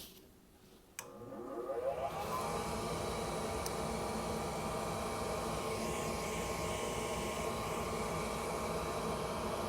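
A gas furnace's fan motor clicks on about a second in, spins up with a rising whine, and settles into a steady running whir.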